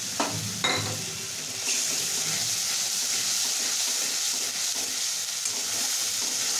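Cashew, almond, poppy-seed and ginger paste sizzling in hot oil in a kadai while a metal spatula stirs and scrapes it round the pan. Two sharp clinks of the spatula against the pan come near the start, and the sizzle grows louder a little under two seconds in.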